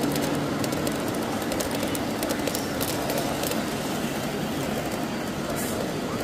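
Model train running along the layout's track: a steady clatter of wheels on rails with irregular sharp clicks.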